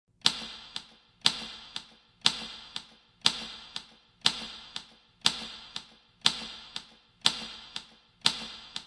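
Clock-like tick-tock: a loud tick and a softer tock each second, each ringing briefly, about nine times over. It starts and stops abruptly.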